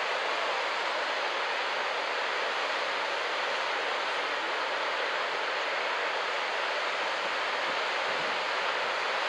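Steady, even hiss of surf breaking along a sandy beach, with no single wave standing out.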